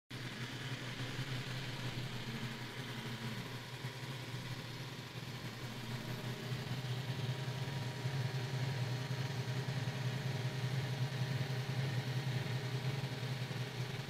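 Tacklife S10 Pro robot vacuum running with a steady motor hum and hiss as it drives across the floor toward its charging dock. It grows a little louder about six seconds in.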